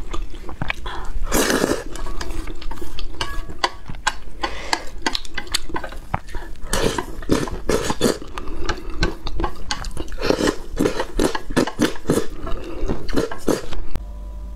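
Close-miked eating sounds: chopsticks clicking and scraping against a metal bowl of spicy noodles, with quick slurps and smacks as the noodles and sauce are sucked up.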